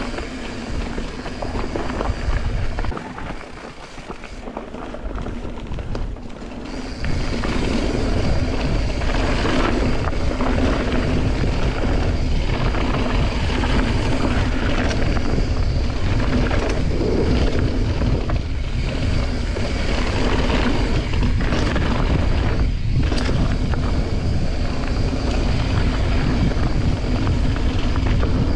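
Mountain bike descending a dirt and gravel trail: rushing wind on the microphone over the rumble of tyres on the loose surface. It is quieter from about three to seven seconds in, then steady and louder.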